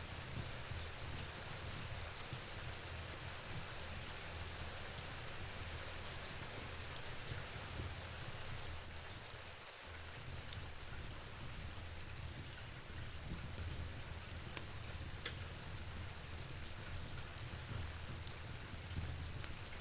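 Steady rainfall with a low rumble underneath and scattered sharp ticks, one louder click about three-quarters of the way through. The sound dips briefly near the middle.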